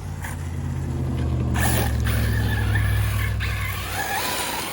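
Arrma Senton 6S electric radio-control truck running fast over dirt, its brushless motor whining over the tyre hiss. The sound swells to its loudest in the middle and fades near the end.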